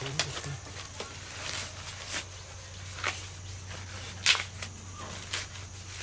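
Dry corn husks rustling and crackling as cobs are handled and tied into bunches by their husks. Short crackles come about once a second, the loudest about four seconds in.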